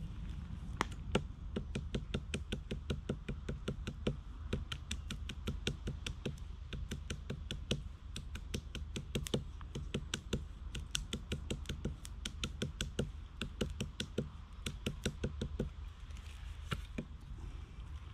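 Rapid, regular light knocking or tapping, about five strokes a second, keeping an even pace throughout.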